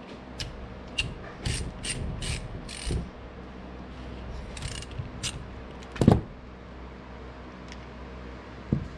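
A run of short metallic clicks and scrapes as a hand tool works the drain plug on an Arctic Cat diamond drive gearcase, then a solid clunk about six seconds in as the metal case is handled on the workbench, and a lighter knock near the end.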